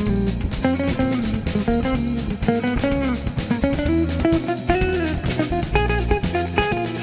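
Background music: a guitar with bass and a steady drum-kit beat.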